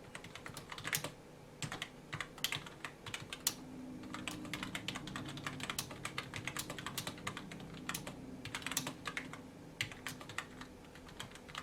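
Typing on the NPET K10 keyboard's smooth rubber-dome keys: quick runs of key presses with brief pauses between them.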